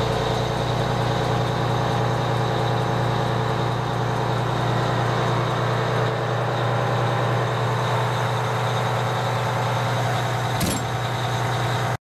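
Detroit Diesel engine of a 1990 Pierce Arrow pumper fire engine idling steadily, heard from inside the cab, with a deep, even hum. A brief sharp sound cuts in near the end.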